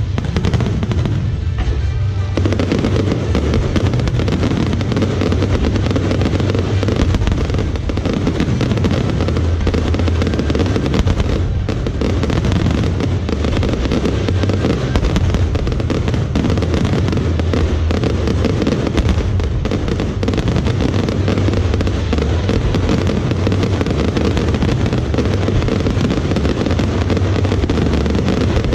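A dense, continuous fireworks barrage: rapid crackling bursts over steady deep booms, with no pauses.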